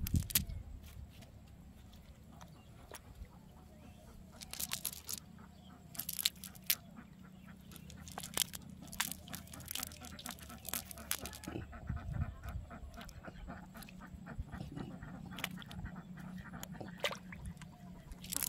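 Ducks quacking intermittently, with scattered short clicks and rustles from a cast net being handled.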